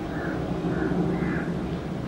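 Distant jet engines of a Boeing 737-700 (CFM56-7B turbofans) giving a steady low rumble as the airliner climbs away after takeoff. Over it, a bird calls three times about half a second apart.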